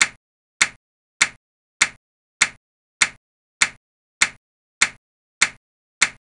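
Sharp synthetic click sound effect repeating evenly about every 0.6 seconds, eleven times, each click marking one CPU clock tick counted for the running process.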